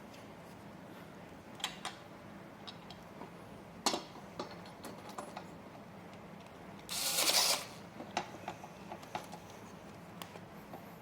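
Scattered small clicks and taps of gaming-chair parts and assembly tools being handled, with a sharper click about four seconds in and a louder half-second burst of noise about seven seconds in.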